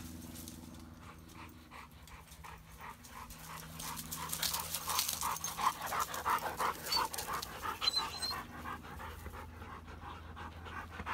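Dogs, a young black Labrador among them, panting hard after running for a fetched ball: quick, rhythmic breaths that grow louder about four seconds in as the dogs come close.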